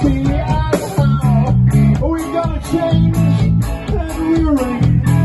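Live rock band playing: electric guitars, bass and drums with a steady beat, loud throughout.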